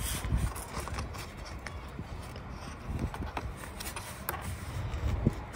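Plastic push-in trim clips being handled and pressed into a car's front bumper and wheel-arch trim: a few small clicks and knocks over a low rumble of handling noise.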